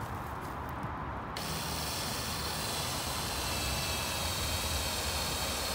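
Cordless drill running, its bit boring drainage holes through the base of a black plastic compost bin. It becomes a steady, bright whirring hiss with a faint high whine about a second in.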